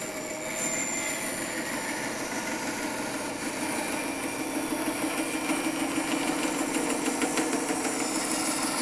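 Band saw running and cutting through a block of wood: a steady machine hum with the blade working in the wood, growing a little louder over the cut.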